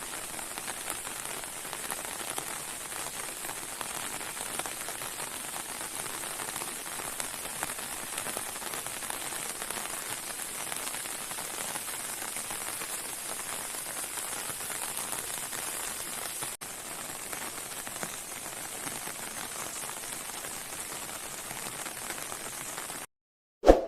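Steady rain falling, with a brief break about two-thirds of the way through. Near the end it cuts off abruptly, and a short, loud sound follows.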